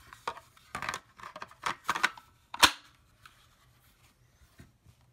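Hart 20V battery pack being handled and slid into the Hart HPHL66 spotlight: a series of hard plastic clicks and knocks, the loudest a single sharp snap about two and a half seconds in, as the battery latches home.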